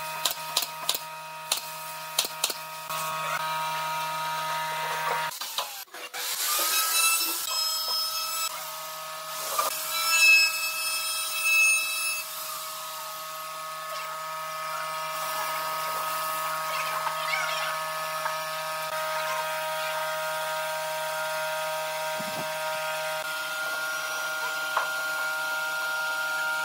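Pneumatic nail gun firing a quick series of sharp shots into a wooden chair frame over the first few seconds, followed by irregular scraping and handling of the wooden parts. A steady drone of several tones runs underneath.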